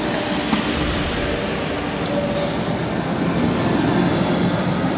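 Intercity coach bus running under power as it climbs round a bend and drives past, loudest about four seconds in, with a hiss setting in about halfway through.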